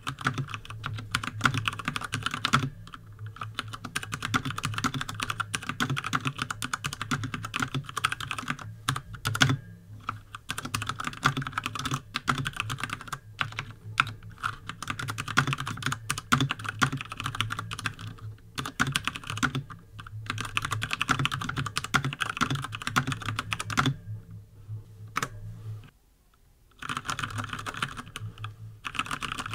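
Steady typing on a Durgod Taurus K320 mechanical keyboard with Cherry MX Brown switches: a fast, irregular clatter of key presses, with a brief pause near the end.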